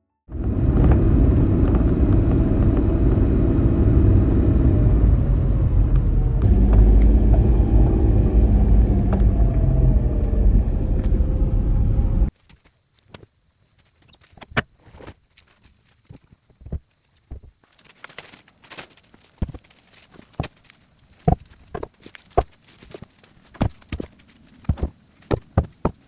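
Low rumble of a running motor vehicle for about twelve seconds, cut off suddenly. Then scattered light crunches, snaps and steps, with a faint high steady tone for a few seconds.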